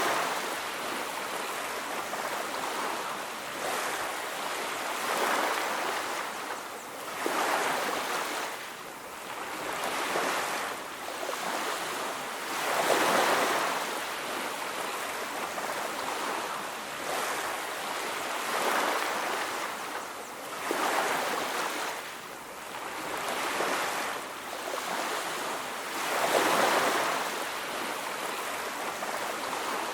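Ocean surf breaking and washing onto a beach: an even hiss that swells and fades in uneven waves every two to four seconds.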